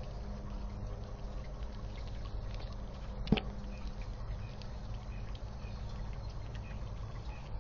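Grey squirrel chewing peanuts, with faint scattered crunching ticks over a steady low background hum. One sharp click comes about a third of the way in.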